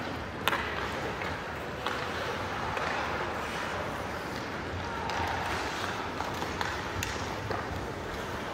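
Ice hockey play in a rink: three sharp clacks of stick, puck or boards over a steady background noise of the rink, with a short faint tone a little past the middle.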